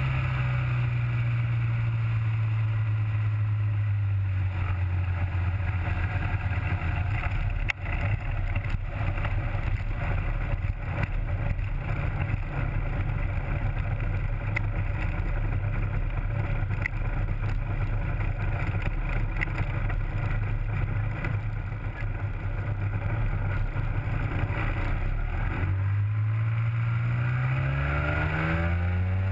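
Rotax 503 two-cylinder two-stroke engine and three-blade propeller of an ultralight running steadily at low power while taxiing, dropping slightly in pitch about four seconds in. Near the end the engine revs up sharply, rising in pitch.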